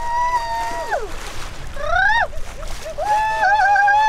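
A person's voice making long, high wordless calls of excitement: a held call that slides down at its end, a short quick rising one, then another held, wavering call. Water splashes and sloshes underneath.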